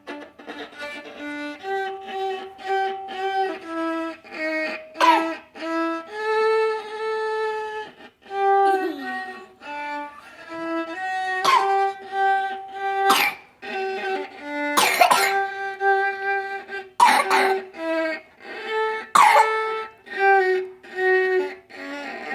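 A viola playing a simple melody of short bowed notes, with someone coughing loudly about six times over it.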